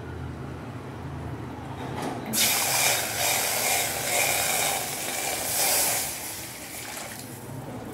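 Water poured from a steel bowl into a steel tumbler and from the tumbler into a steel kadai: a steady splashing hiss starting about two and a half seconds in and lasting about four seconds.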